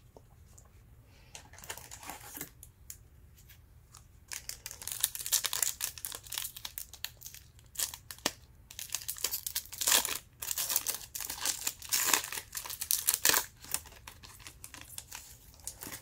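Crinkly trading-card pack wrapper being crumpled and torn open: a short burst of crackling about two seconds in, then a long dense run of crinkling from about four seconds in until near the end.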